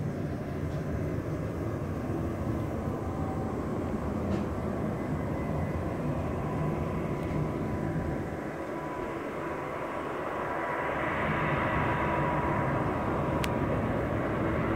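Aircraft on approach to land, its engine noise a steady rumble that grows louder, with a higher whine and hiss building over the last few seconds as it comes closer.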